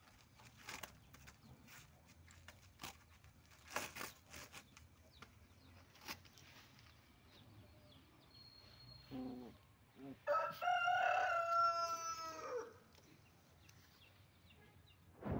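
A rooster crowing once, about ten seconds in, a single drawn-out call of about two and a half seconds that drops in pitch at the end, with a short low clucking just before it. Before that, faint scratches and rustles of puppies chewing and pawing cardboard on dirt, and a handling bump near the end.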